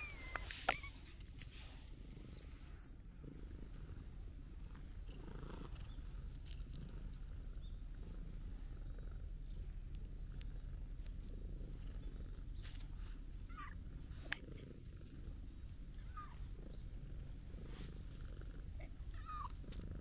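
Calico cat purring steadily, with a meow at the very start and a few short meows in the second half.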